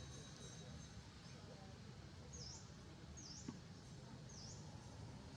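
A bird repeating a short high chirp, dipping and rising in pitch, about once a second from about two seconds in, over faint steady outdoor background noise. A faint tap comes about midway.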